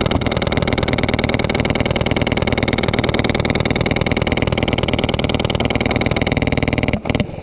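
Polarstar F2 HPA-powered airsoft MK48 light machine gun firing one long full-auto burst: a fast, even rattle of shots that stops abruptly about seven seconds in.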